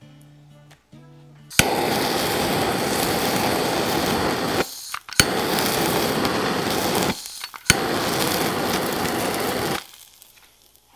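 Handheld butane torch clicking alight and blowing a steady rushing flame onto a cube of ribeye steak, three times in a row. Each burst lasts two to three seconds with a short break between them, searing the surface of the meat.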